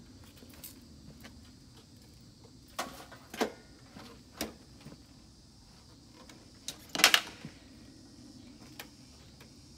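A few short clunks and clicks from a rider mounting and readying a touring motorcycle before starting it, the loudest a double knock about seven seconds in; the engine is not yet running.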